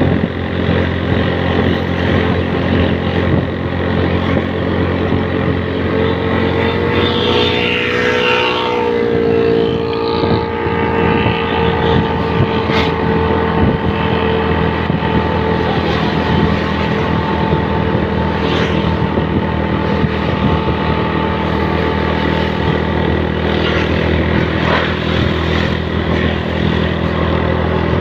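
Engine of a road vehicle running steadily at cruising speed, heard from on board, with a shift in its pitch about eight seconds in.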